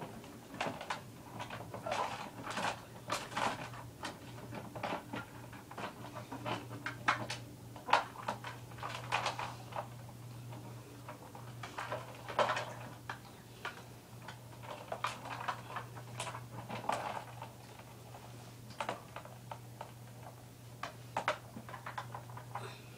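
Irregular sharp clicks and knocks, a few a second, over a steady low hum.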